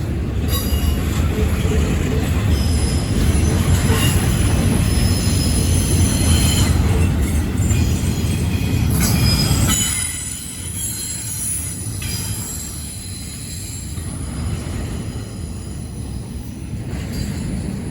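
Freight cars of a CSX intermodal train rolling past, their steel wheels squealing high and thin over a heavy rumble. The rumble drops away about halfway through, leaving the wheel squeal on its own.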